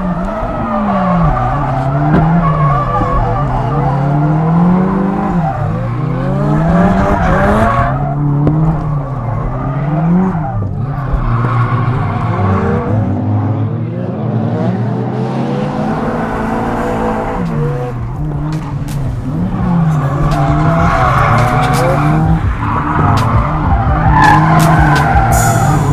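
Nissan 180SX drift car's engine revving hard, its pitch climbing and dropping over and over as the throttle is worked through a drift run, with the rear tires squealing and skidding under it.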